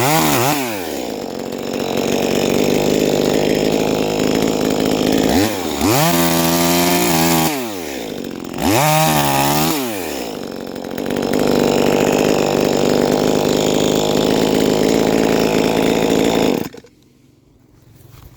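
Huspanda HP2500S chainsaw's small two-stroke engine revving up and dropping back several times, then held steady at high revs for several seconds. The engine cuts off suddenly near the end.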